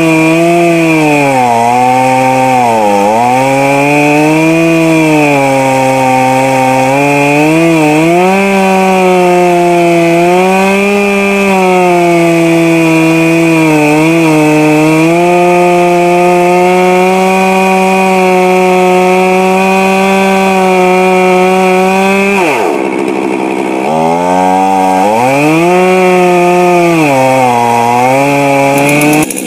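Stihl MS 441 Magnum two-stroke chainsaw with a 36-inch bar at full throttle, cutting noodles along the grain of a big red oak round. The engine pitch sags under load and recovers over and over. About three-quarters of the way through, the throttle is let off briefly, the engine drops, and then it revs back up into the cut.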